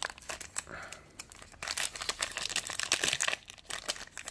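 Foil trading-card pack wrapper crinkling and tearing as it is worked open by hand, a dense crackle that thins out about three seconds in.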